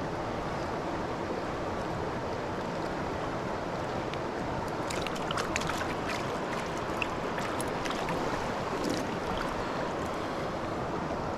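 Steady rush of flowing stream water. A few short, sharp sounds stand out over it between about five and nine seconds in.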